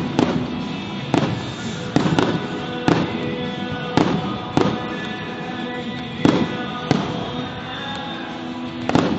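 Aerial fireworks shells bursting in an irregular string of bangs, roughly one a second with some close pairs, over music from the stadium's sound system.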